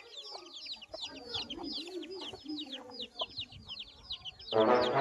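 Asil chicks peeping nonstop in quick, high, falling notes, with a hen clucking low beneath them in the middle. Loud music cuts in near the end.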